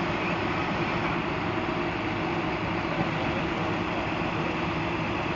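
Bucket truck's engine running steadily, a constant hum with a few held low tones.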